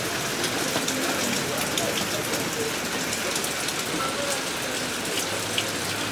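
Steady rain falling on a flooded street, many small drops hitting the standing water.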